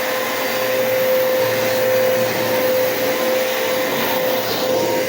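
Bissell PowerForce Bagless 6583 upright vacuum cleaner running steadily with its roll brush on: a constant motor whine over a loud rush of air.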